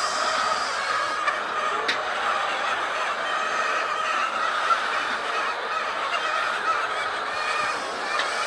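A flock of laying hens clucking and calling all at once in a continuous dense din, with a couple of sharp clicks.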